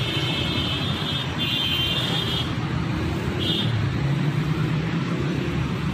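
Toyota SUV driving slowly past at close range, its engine running with a steady low rumble and road noise. Short high-pitched tones sound about one and a half seconds in and again briefly past the three-second mark.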